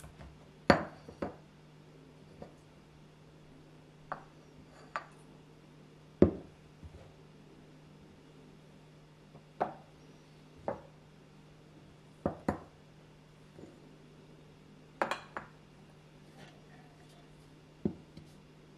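Kitchenware and ingredients set down and moved on a stone countertop: about a dozen separate knocks and clinks at irregular intervals, some from glass such as a measuring jug. A faint steady hum underneath.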